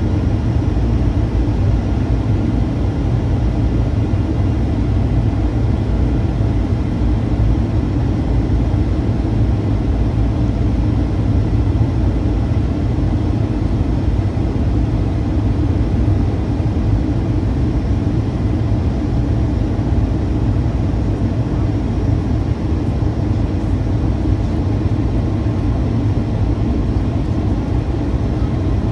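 Steady in-flight cabin noise of a Boeing 737-800: a deep, even rumble of airflow and its CFM56-7B engines, heard from a seat at the front of the cabin, with a faint steady high tone above it.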